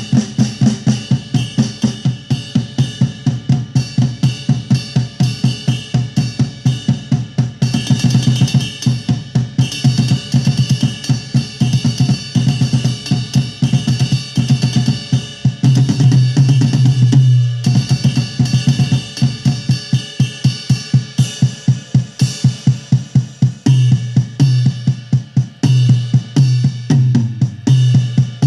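Programmed drum beat played from XLN Audio Addictive Drums 2 virtual drum kit samples: a fast, dense pattern of kick, snare, hi-hat and cymbal hits running continuously.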